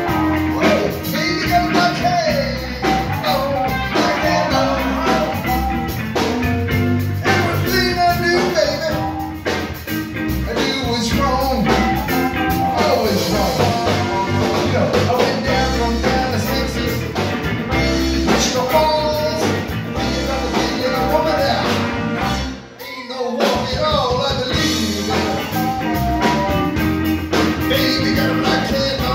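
Live blues-rock band playing, with guitar and singing over bass and drums; the band drops out for a moment about three-quarters of the way through, then comes back in.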